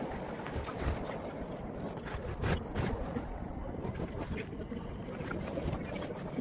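Rope being fed through the grab-line holes of an inflatable PVC boat: rustling and scraping, with scattered small clicks and knocks, over a steady background rush.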